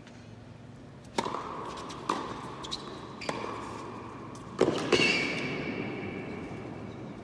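Tennis rally: a racket striking a tennis ball four times, sharp hits about a second apart, each echoing around the indoor arena, the last the loudest.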